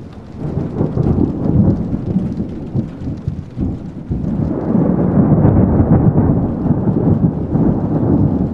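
Thunder rumbling in long, loud rolls during a thunderstorm, with rain underneath. The rumble eases off briefly about four seconds in, then a second roll builds.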